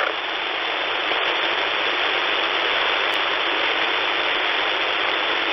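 Steady shortwave radio hiss through a single-sideband (USB) receiver, filling the narrow voice passband with no speech, in the pause between two readings of a callsign check on the 3828 kHz military channel.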